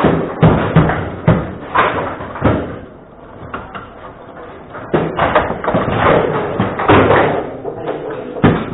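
Table-football game in play: a string of sharp, irregular knocks and slams as the ball is struck by the players and the rods bang against the table, with a short lull about midway.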